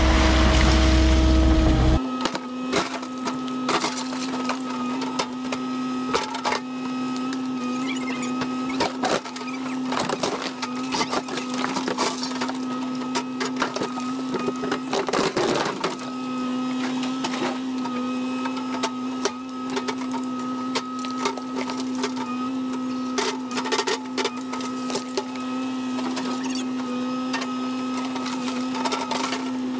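Kubota KX080 diesel excavator at work: a steady engine drone with many sharp knocks and scrapes as the bucket works concrete, rock and dirt. The first two seconds are louder and lower, the engine heard close up, before the sound cuts abruptly to the same machine at a distance.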